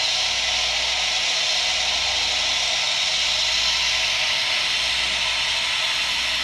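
Model train sound decoder playing the TurboTrain's gas-turbine engine sound through its small onboard speaker: a steady turbine whine and hiss as the N scale train creeps off at speed step one.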